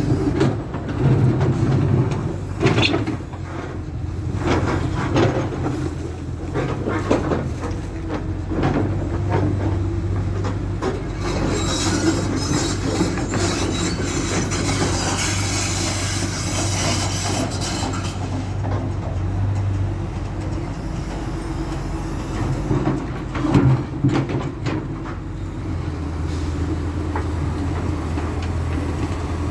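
Excavator's diesel engine running steadily while its steel bucket knocks and scrapes against broken asphalt, in clusters of clanks near the start and again about two-thirds of the way through. A high squeal holds for several seconds in the middle.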